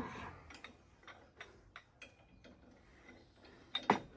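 Irregular metallic ratcheting clicks, a few a second, from hand tools or jack equipment under the truck, with a louder metal clunk near the end.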